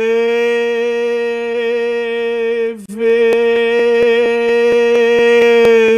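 A man's voice holding one long sung note at a steady pitch, broken once near the middle and then held again. Through the second half, sharp even clicks or claps come about four a second.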